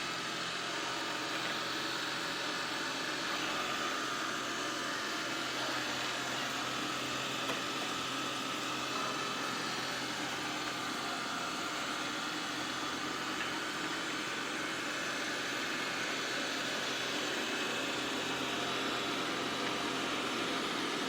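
Xiaomi X20 Pro robot vacuum-mop running while mopping the floor: a steady whir of its suction fan and motors with faint steady tones.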